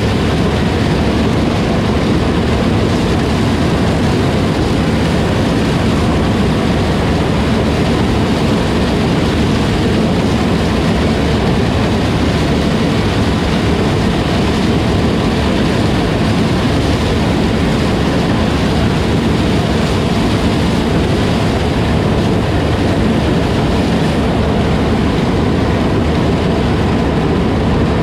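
John Deere 9500 combine running steadily, a loud, even machine noise that does not change.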